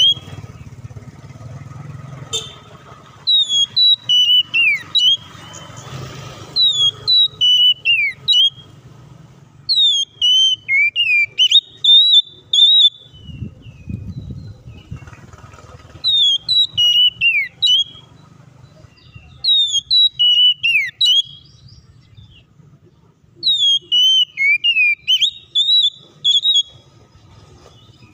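Oriental magpie-robin singing: loud whistled phrases, each sliding down in pitch, delivered in bouts of a few seconds separated by short pauses.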